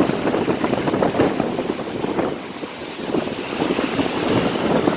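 Gusting storm wind buffeting the microphone, mixed with choppy waves sloshing and breaking against a wooden dock. A loud, continuous roar that swells and eases with each gust.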